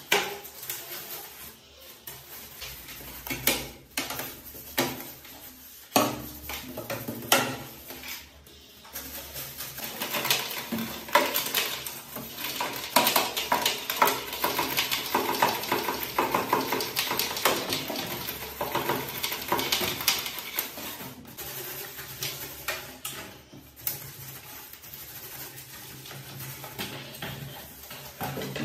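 A stiff brush scrubbing the soapy steel case of an old HCL desktop PC, bristles scraping over the sheet-metal chassis. Scattered knocks and clinks come as the case is handled.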